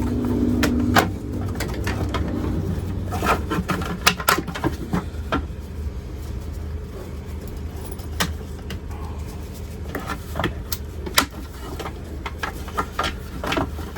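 Scattered clicks and knocks of a truck's plastic door trim panel and its wiring being handled and pushed through, over a steady low hum.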